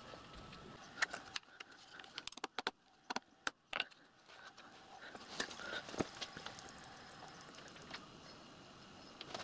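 Light metallic clicks and small scrapes from hand work on a small lathe's compound slide clamped on a rotary table, with a quick run of sharp clicks between about two and four seconds in.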